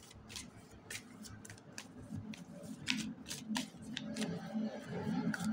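Tarot cards being shuffled by hand, a packet lifted from the deck and dropped back again and again: a run of short card slaps and flicks, about two or three a second.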